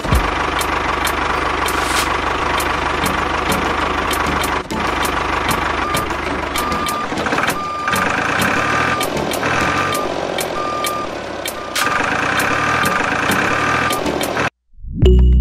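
A miniature tractor's motor running steadily with regular clicking. A short electronic beep repeats, like a reversing alarm, from about halfway through for several seconds. The sound cuts off abruptly near the end.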